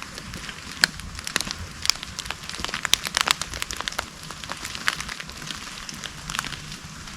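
Irregular crackling and snapping of a hiker's steps through dry leaves, twigs and brush, with a low rumble underneath.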